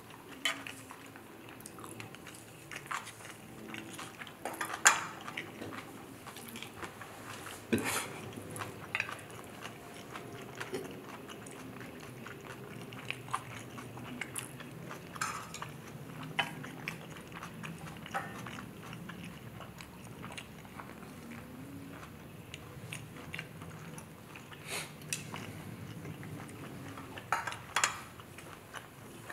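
Close-miked chewing of a mouthful of Chapaguri black bean instant noodles, with irregular wet smacks and mouth clicks every second or two.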